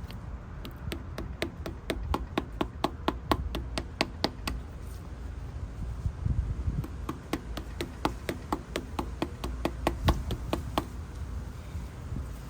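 Quick run of light metallic hammer taps on a 46 mm socket used as a seal driver, tapping the front crankshaft main seal into place, about three to four taps a second. The tapping pauses briefly around the middle, then resumes.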